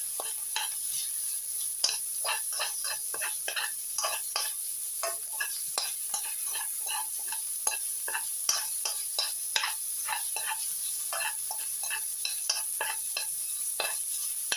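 Metal spatula scraping and tapping against a wok in irregular strokes, a few a second, as meat, garlic and chilies are stir-fried, over a steady high sizzle of hot oil.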